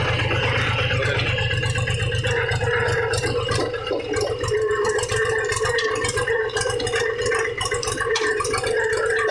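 Tractor engine running while the tractor drives over a rough dirt track, with loose rattling and knocking throughout that grows busier about three seconds in.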